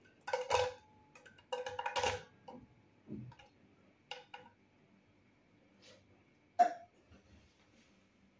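Pieces of diced onion dropped into a nonstick frying pan, landing in quick clusters of soft knocks over the first two seconds, then a few scattered taps, with one sharper knock near the end.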